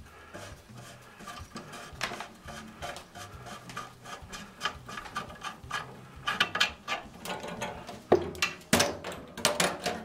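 The metal fitting of a yellow corrugated flexible gas connector is spun off a furnace gas-valve connection by hand, clicking and rattling because it was loose. In the second half the clicks come thicker and louder as the metal line clatters against the cabinet while it is pulled out.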